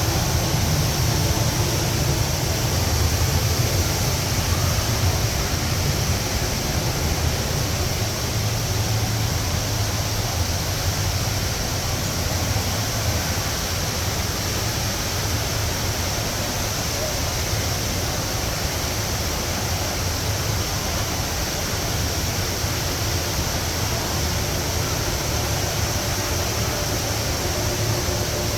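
Rain Vortex indoor waterfall pouring: a steady rush of falling water with a low rumble.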